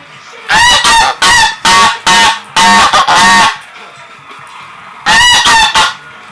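White Sebastopol goose honking loudly at close range: a quick run of about seven harsh honks, then after a pause of about a second and a half another short burst of honks. The owner takes the honking for a greeting call.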